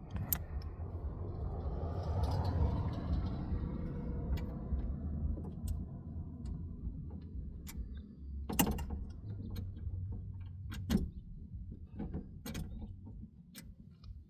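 Hand work on a car door's window regulator: parts and tools being handled, with scattered sharp clicks and knocks over low rustling handling noise.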